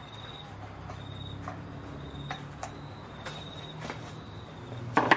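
Insect chirping in short high trills about once a second, over a low steady hum, with a sharp knock near the end.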